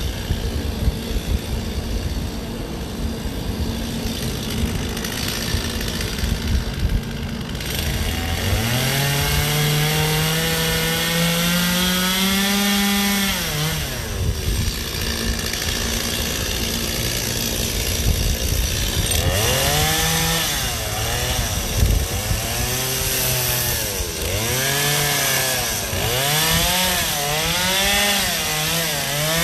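Gas chainsaw carving ice. The engine runs with a rough, noisy cutting sound at first, then revs up in one long climb in pitch about a third of the way in, and near the end is revved up and eased off again and again, about once a second.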